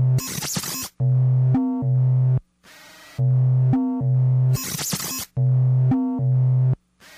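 Background music: a looping phrase of low held notes, each followed by a short noisy burst, repeating about every two seconds.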